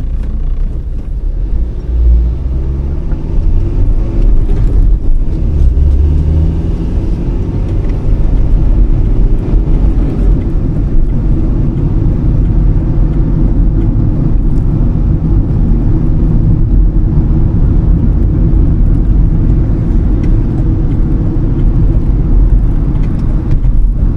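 Car driving at a steady pace: continuous low rumble of road and engine noise.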